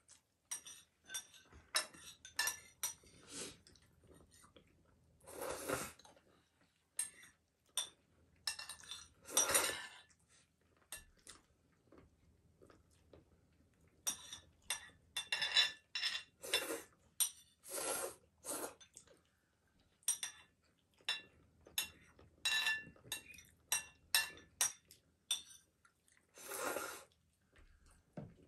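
Metal spoon clinking against a ceramic bowl, dozens of short light clinks at an irregular pace, mixed with a few longer eating sounds.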